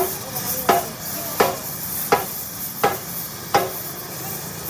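Six evenly spaced knocks, about one every 0.7 seconds, each with a short ring.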